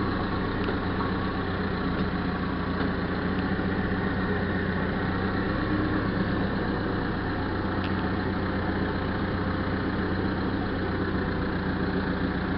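Backhoe's diesel engine idling steadily, with an even low hum.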